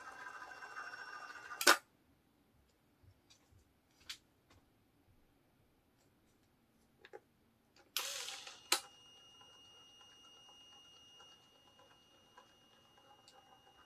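Ryobi CCG1801MHG 18V cordless caulking gun's electric motor running with a steady whine as it drives the rack to push out a bead of sealant, then stopping with a sharp click near two seconds in. After a few seconds of near quiet with faint ticks, it starts again with a click about eight seconds in and keeps running more quietly.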